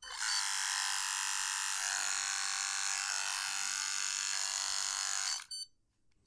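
Philips S9000 electric shaver running with its trimmer attachment fitted: a steady motor hum for about five seconds that stops suddenly, followed by a short electronic beep.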